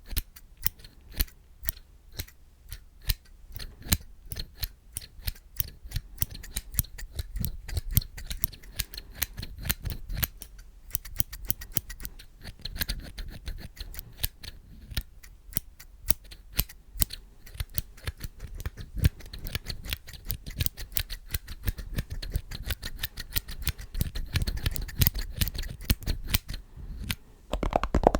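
Scissors snipping over and over in quick, irregular cuts, each a sharp click. Near the end the snipping stops and a louder, continuous noise begins.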